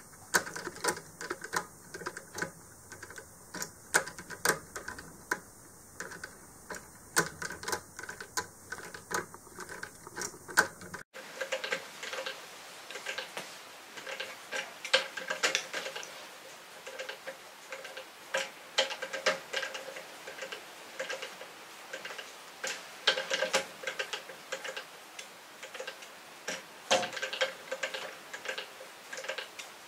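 Kinetic sculptures spinning, their moving parts clicking and knocking irregularly, several times a second; the background hiss changes abruptly about eleven seconds in.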